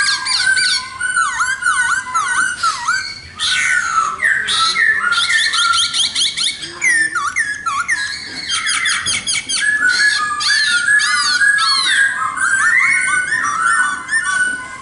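A khướu mun laughingthrush singing a loud, continuous, varied song of whistled notes, swooping glides and fast repeated trills.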